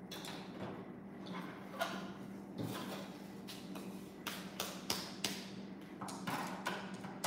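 Light clicks and taps of plastic toy kitchen pieces and play-dough tools handled on a table, a few at first, then several a second from about halfway.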